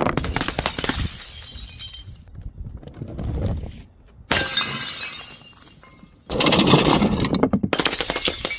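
Glass bottles shattering, with shards crunching and clattering. There are fresh crashes about four seconds in and again about six seconds in, each trailing off into tinkling fragments.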